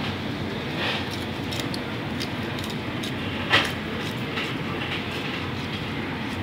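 Steady low mechanical rumble, with light clicks of a knife slicing salmon fillet against a plastic cutting board and one sharp click about three and a half seconds in.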